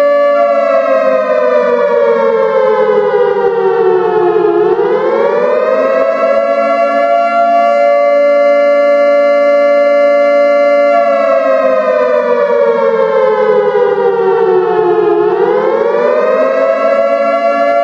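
A siren sounding several tones at once. Its pitch slides slowly down for about four seconds, swings back up, then holds steady, and it goes through this twice.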